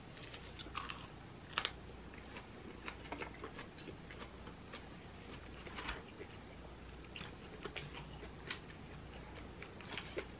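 Close-up eating sounds: chewing a leaf-wrapped ssam of smoked duck, with scattered light clicks and taps of chopsticks and tableware, the sharpest about one and a half seconds in and again near eight and a half seconds.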